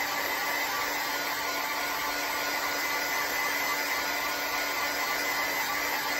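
Craft heat gun blowing hot air to dry wet watercolor paint on paper. It is a steady rush of air with a constant high whine and a low hum.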